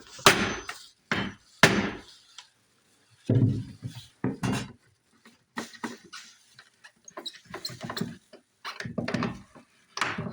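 Wooden baseboard trim being knocked and pried off a wall with a pry bar: a series of sharp, irregular knocks and thuds.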